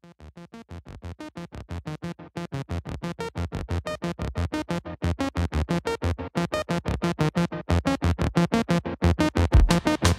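Electronic intro music: a rapid, even pulse of short staccato notes that fades in and grows steadily louder, with a rising sweep near the end.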